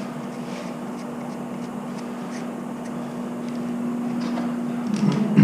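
Steady low electrical hum at one pitch, growing a little louder, then a short louder clatter right at the end.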